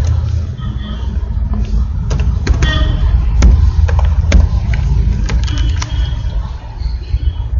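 A steady low rumble with scattered sharp clicks of computer keys being typed.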